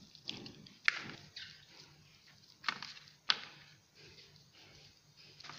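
Raw fish steaks being rubbed together by hand to coat them in a dry spice mix, giving soft wet squishing with three sharper smacks in the first few seconds.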